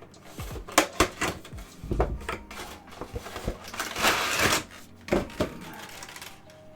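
A collectible being unpacked by hand: packaging handled with a series of sharp clicks and knocks, and a loud crinkly rustle about four seconds in.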